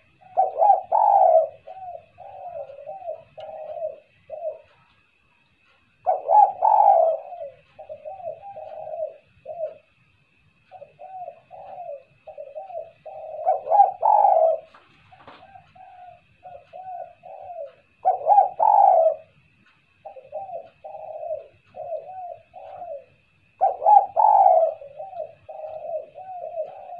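Spotted dove cooing its song: each phrase opens with a louder coo followed by a run of shorter coos, repeated about every five to six seconds.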